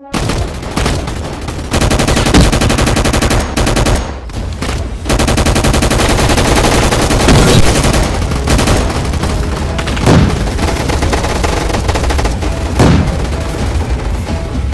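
Sound effect of a mountain collapsing: a continuous deep rumble under dense, rapid crackling, with a few heavier booms, easing off briefly about two seconds in and again around four seconds in.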